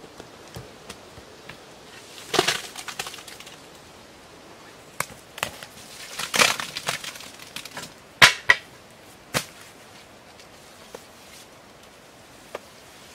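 Dry grass or straw rustling in two short bursts while it is handled inside a bamboo-walled pit, with several scattered sharp knocks, the loudest about eight seconds in.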